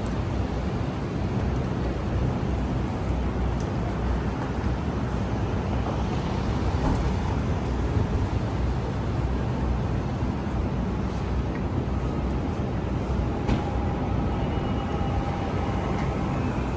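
Steady low rumble of vehicle noise, with a few faint clicks and a faint high tone near the end.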